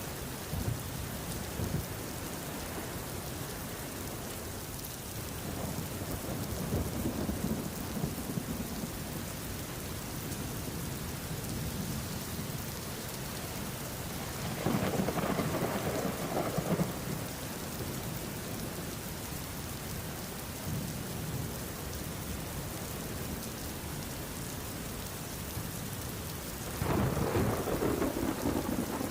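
Steady rain falling during a thunderstorm. Low rolls of thunder swell up about halfway through and again near the end.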